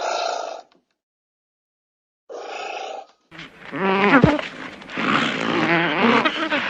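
Farm animal calls: two short bleats, then a louder, longer stretch of wavering animal calls with a sharp falling glide about four seconds in.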